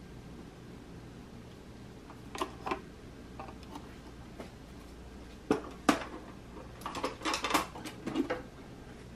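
Hard vintage lucite purse being handled and moved: two sharp clacks of hard plastic about two and a half seconds in, then a quick cluster of clicks and knocks from about five and a half to eight seconds as it is shifted and set down.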